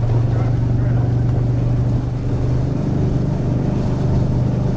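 Utility vehicle (Mule side-by-side) engine running at a steady speed while driving, a constant low drone with no change in pitch.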